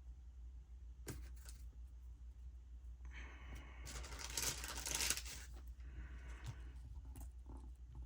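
A paper sticker being peeled off its backing sheet: a tearing rasp lasting about two seconds midway, with a light tap about a second in and a fainter scrape afterwards.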